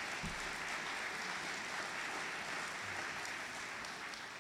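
Audience applauding, a steady patter of clapping that dies away near the end.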